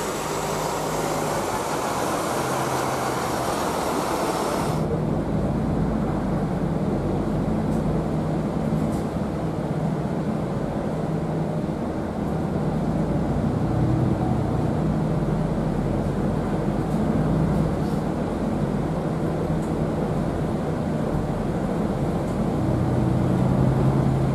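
MAN D2066 six-cylinder diesel of a MAN ND323F A95 double-decker bus pulling away through the gears of its ZF EcoLife six-speed automatic, heard from the upper deck. The engine note climbs and then drops back at each shift. For the first five seconds the bus is heard from outside with a steady hiss.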